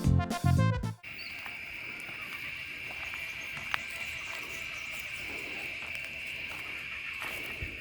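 Background keyboard music that cuts off about a second in, giving way to a steady, high-pitched chorus of insects with one sharp click partway through.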